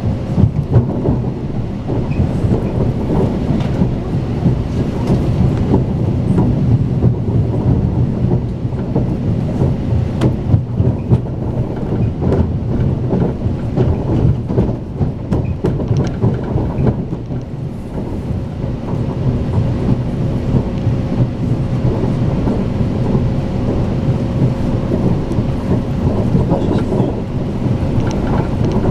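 Strizh Talgo express train heard from inside the carriage while running at speed: a loud, steady low rumble of wheels on rail with scattered clicks and a faint steady hum.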